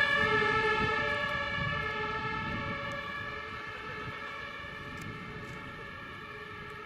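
Fire engine siren sounding steady tones that fade steadily as the vehicle drives away, over a low rumble.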